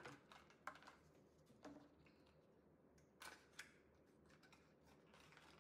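Cardboard packaging being handled and opened, a few faint scrapes and taps of paperboard spaced a second or so apart.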